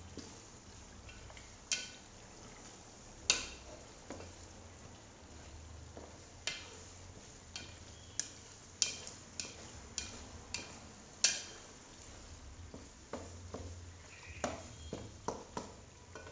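A spoon stirring thick chili sambal in a stainless steel pot, knocking and scraping against the pot's metal side in many sharp, irregularly spaced clicks over a low steady background.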